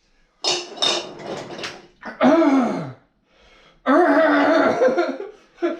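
A man's pained vocal reactions to very spicy food: a few short sharp noisy bursts, then a groan falling in pitch, then a long drawn-out strained vocal sound near the end.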